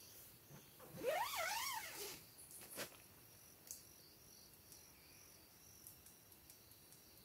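A tent zipper pulled in a quick zip about a second in, its pitch rising and falling with the pull. Crickets trill steadily behind it, and there are a couple of small handling clicks afterwards.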